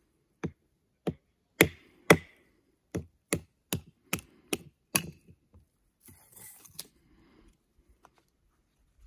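A wooden baton striking the spine of a knife blade set in a log section, batoning to split a wedge off the wood: about ten sharp knocks over five seconds, coming quicker after the first few.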